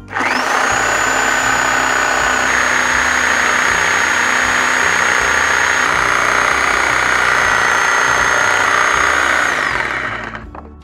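Corded reciprocating saw cutting through pallet wood at full speed, a steady high motor whine over the rasp of the blade. It spins up at once and winds down near the end.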